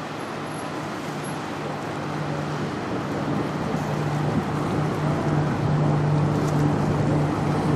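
Low, steady machinery hum of the passing Whistler bulk carrier, growing gradually louder, over a haze of wind and water noise.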